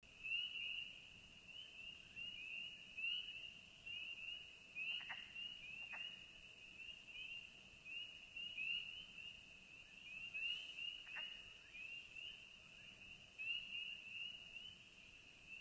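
A night chorus of many calling frogs: short high, rising peeps that overlap in an unbroken stream, with a few sharper clicks here and there.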